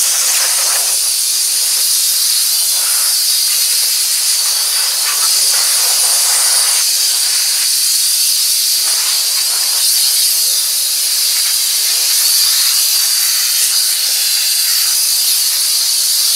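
Compressed air hissing steadily and loudly from a handheld air blow gun, blowing rinse water off an engine bay to dry it after washing.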